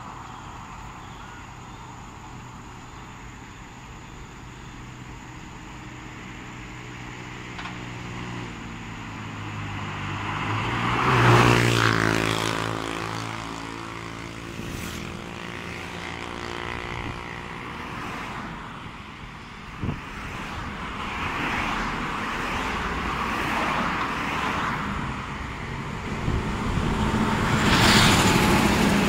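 Road traffic passing. A heavy vehicle's engine grows louder to a peak about eleven seconds in, then falls in pitch and fades as it goes by. Another vehicle passes near the end, and a single short knock comes about twenty seconds in.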